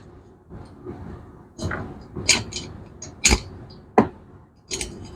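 Metal parts and tools being handled on a workbench during valve-guide work on a motorcycle cylinder head: a string of irregular sharp clinks and knocks, about six of them.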